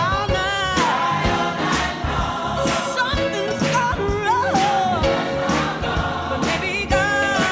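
Gospel music: voices singing together over a band with a steady beat.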